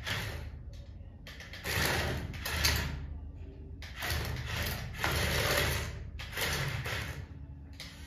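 Small electric motor and plastic gearbox of a battery-powered toy excavator whirring in start-stop bursts of one to two seconds, with short pauses between, as the toy drives back and forth.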